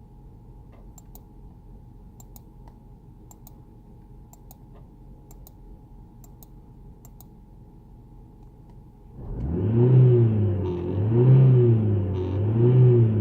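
Scattered light clicks over quiet for about nine seconds. Then, suddenly, the Renault Megane 2's 1.6 16v petrol engine is heard being revved up and down about every second and a half, on a car the owner says is misfiring and shaking without any fault codes.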